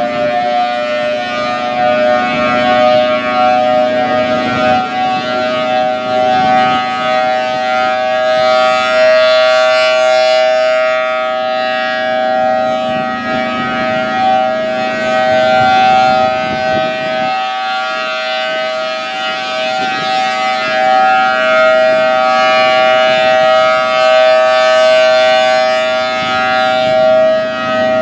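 Federal Signal Thunderbolt 1000T rotating outdoor warning siren sounding a steady alert. It holds two steady pitches a little apart, and its loudness swells and fades every few seconds as the head rotates. The siren is reverse-wired.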